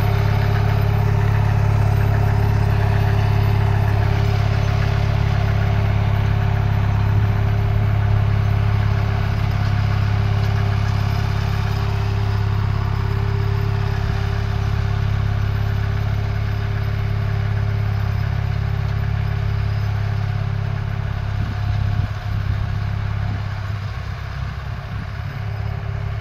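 Captain 280LS compact tractor running steadily while driving a 5-foot rotary tiller through soil, a constant low engine hum with a churning mechanical clatter over it. It grows a little fainter over the last few seconds as the tractor moves away.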